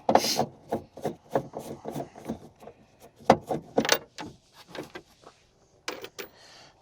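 Irregular light clicks and knocks, several a second, from hands working on the plastic interior trim and screws of a pickup's door, with a couple of sharper clicks near the end.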